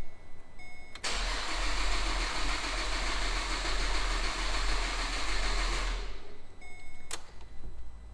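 Starter cranking the Holden VE Commodore's Alloytec LLT V6 for about five seconds without it firing: the coil packs are unplugged so the engine turns over only to prime the dry oil pump and filter. Short electronic beeps come just before and after.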